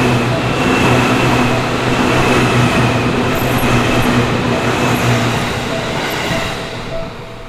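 A Seibu Shinjuku Line electric train passing over a level crossing: loud, steady rolling noise with a low hum, dying away in the last second or so. As it fades, the crossing's warning bell comes through, ringing in a steady repeating beat.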